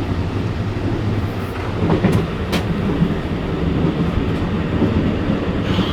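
Running noise heard in the gangway between cars of a Taiwan Railway EMU900 electric multiple unit: a steady low rumble with a few sharp clicks about two seconds in.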